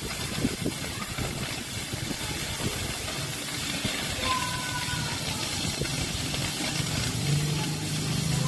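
Oxy-fuel cutting torch hissing steadily as it cuts through steel plate, with irregular crackling from the molten metal and sparks. A low steady hum joins near the end.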